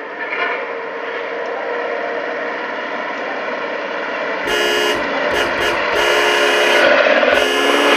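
Log-laden truck coming closer on a dirt road, its engine and road noise growing louder, with its horn sounding in several blasts from about halfway in, one held for about a second.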